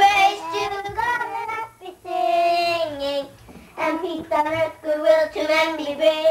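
A small group of young children singing a song together, with several long held notes.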